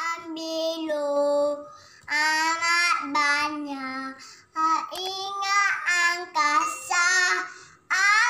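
A young girl singing without accompaniment, in four phrases of held, gliding notes with short breaks for breath between them.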